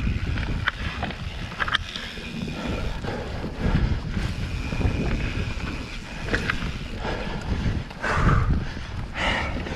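Mountain bike rolling over a dirt trail: wind rumble on the microphone with tyre noise, and scattered sharp clicks and rattles from the bike going over bumps.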